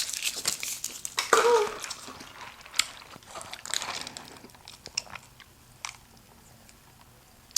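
Crunchy fried onion rings being bitten and chewed close to the microphone: a run of crisp crunches that thins out and fades to near quiet over the last few seconds.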